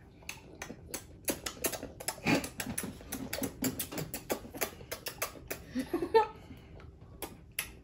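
Children chewing Cry Baby extra sour bubblegum: a run of irregular crunching clicks as the gumballs are bitten and chewed, with a few brief murmurs.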